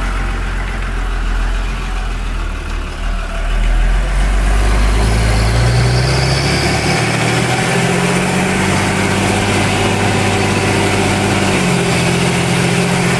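Fiatagri Winner F130 DT tractor's six-cylinder turbo-diesel engine heard from inside the cab with the front window open, running as the tractor drives across the field. About four seconds in it gets louder and its speed rises, then it holds steady at the higher revs.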